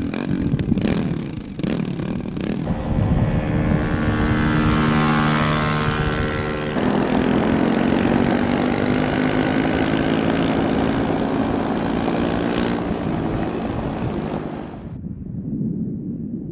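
Dirt bike engine running as the bike rides off, its steady note shifting abruptly about seven seconds in. The sound cuts off sharply near the end, leaving fainter wind noise.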